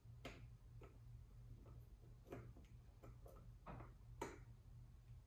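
Faint, scattered light clicks and taps over a low steady hum: the carburetor's top cap being fitted over the throttle slide while the throttle cable is held taut.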